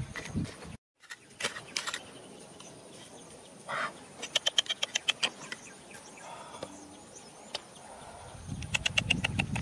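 A trowel and bare hands scraping and raking through stony, gravelly soil. The sound cuts out briefly about a second in. A bird chirps in quick runs of short notes in the middle and near the end.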